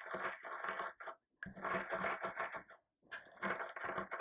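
Charred, blackened garlic cloves being crushed and ground into a fine powder: a gritty crunching and scraping in three bouts with short pauses between them.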